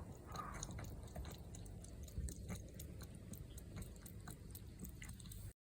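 Chewing heard close up: small, irregular crunching clicks, several a second, over a low steady rumble.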